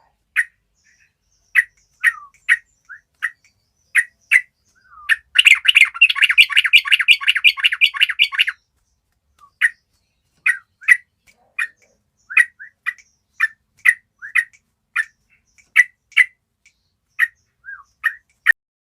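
Flock of yellow-vented bulbuls (trucukan) calling: short sharp chips repeating about once or twice a second, broken about five seconds in by a dense three-second burst of rapid chattering.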